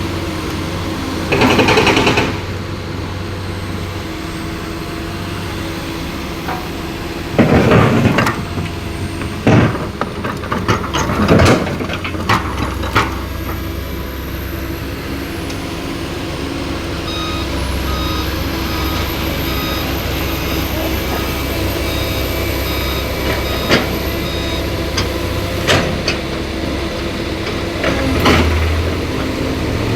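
Heavy diesel trucks running at a road-repair site, with several short loud bursts of noise in the first half. A reversing beeper sounds a repeated short tone, about once a second, through the middle.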